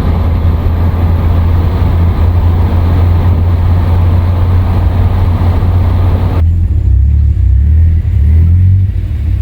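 A Volvo driving on the road: a steady low engine drone with road and wind hiss. The hiss cuts out suddenly about six seconds in while the low drone carries on.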